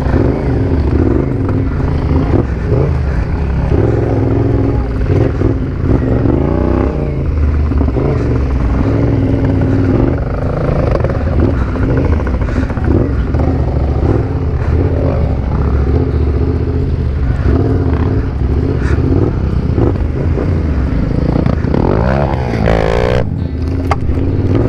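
Yamaha Ténéré 700's parallel-twin engine running on a dirt track, its pitch rising and falling with the throttle over a steady rumble of wind and terrain noise.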